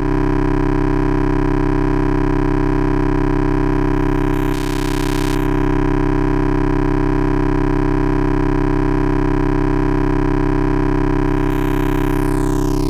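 Eurorack oscillator tone bit-crushed by a Doepfer A-189-1 voltage-controlled bit modifier: a steady drone with a dense stack of overtones, a brief hiss about four and a half seconds in, and the top end falling away near the end as the knobs are turned. The signal is coming into the bit crusher much too loud.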